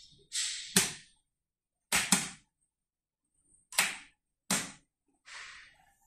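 Magnetic contactors on a star-delta starter board clacking in and out as its push buttons are pressed: several sharp clacks, two in quick succession about two seconds in, with a couple of brief hissy noises between them.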